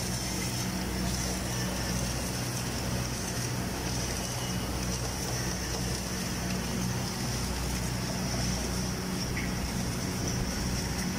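Steady electrical hum of an automatic girth welding rig's DC welding power source running under load during a root pass, with a steady high hiss above it.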